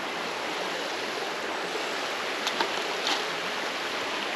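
Steady rush of flowing creek water, with two brief sharp clicks a little past halfway.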